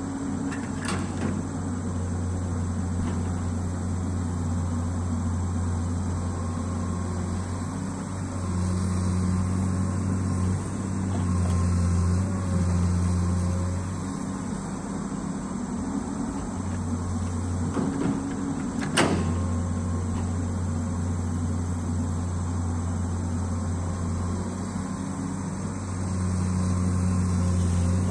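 Komatsu amphibious long-arm excavator's diesel engine running under working load, its drone swelling and easing every few seconds as the hydraulics dig and swing the boom. A single sharp knock comes about two-thirds of the way through.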